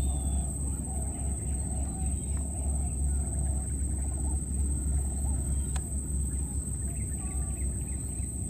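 Outdoor ambience: a steady low rumble and a steady high-pitched whine, with faint short animal calls repeating about twice a second for the first half and a few single calls after that.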